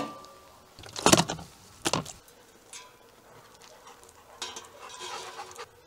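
Heavy thumps on a steel tray, three in the first two seconds, the first with a brief metallic ring. Near the end, about a second of metal clinking and scraping as steel skewers are hooked onto the rack of a tandoor.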